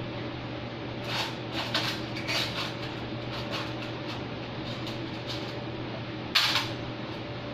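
A run of short scrapes and clatters, like parts being handled and set down, over a steady hum, with one louder clack near the end.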